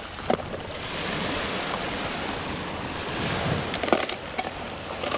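Waves washing on the shore, a steady rushing noise, with wind on the microphone and a few faint clicks.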